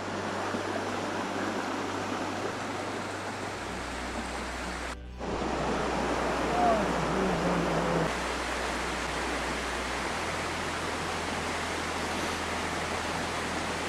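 Small forest creek running: a steady wash of flowing water that drops out for an instant about five seconds in.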